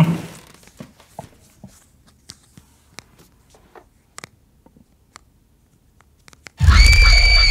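Faint scattered clicks and taps of a small wooden box being handled and opened, then near the end a sudden loud horror sting: a deep boom with a shrill, held high tone.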